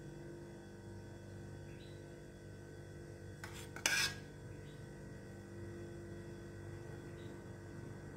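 Metal spoon scooping sauce from a stainless steel saucepan, with one short sharp clink of spoon on the pan a little under four seconds in and soft scraping otherwise, over a faint steady hum.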